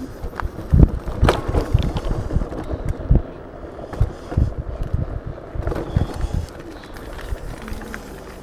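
Wind buffeting an action camera's microphone while riding an E100 Eagle 500 W electric scooter, with repeated thumps and rattles as it goes over bumps in the ground; the loudest knock comes about a second in. A faint steady electric motor whine appears near the end.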